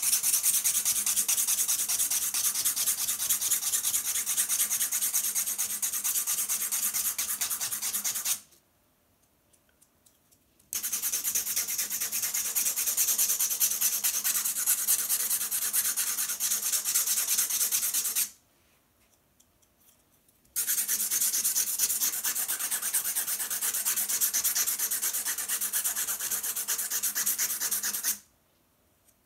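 Steel nail point being sharpened into a drypoint needle, rubbed rapidly back and forth on an abrasive block: quick even strokes in three long runs, stopping twice for about two seconds.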